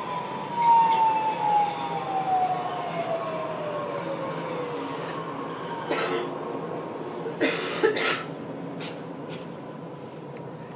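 Budapest Metro M4 train (Alstom Metropolis) braking into a station: the traction motors' whine falls steadily in pitch over about five seconds as it slows, over a constant rumble of running noise. A few short, sharp noises follow as the train comes to a stop.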